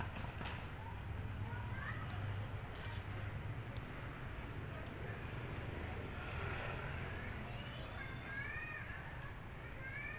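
Street ambience: a steady low hum under a constant high-pitched pulsing trill, with a few short chirping calls near the end.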